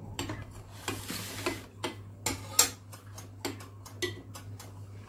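Metal spoon stirring salt brine in a glass bowl, clinking irregularly against the glass to dissolve the salt, with a brief swish of the water about a second in.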